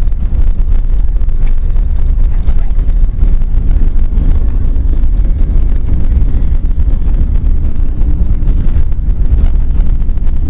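Steady low road and engine rumble heard from inside a moving vehicle's cabin, with wind buffeting the microphone.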